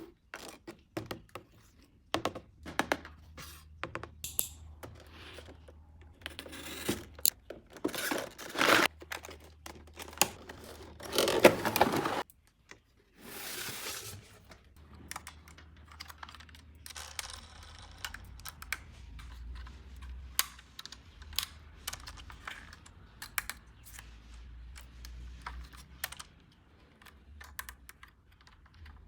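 Handling of a plastic toy car and its packaging: many quick small plastic clicks and taps, with a few longer rustling, tearing sounds, the loudest a little before halfway through.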